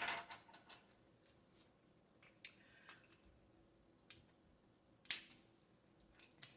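Faint, scattered clicks and taps from eating a seafood boil at the table, as food and tableware are handled. The loudest comes about five seconds in.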